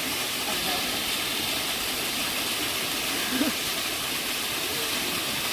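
Steady rushing water of a waterfall, with a brief faint voice about three and a half seconds in.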